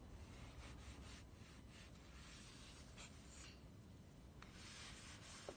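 Near silence with faint, soft rustling and brushing now and then.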